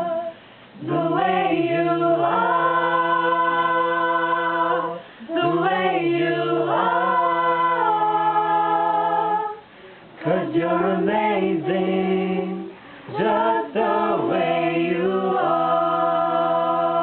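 A cappella choir singing long held chords in several phrases, each separated by a brief breath-like gap, with no instruments.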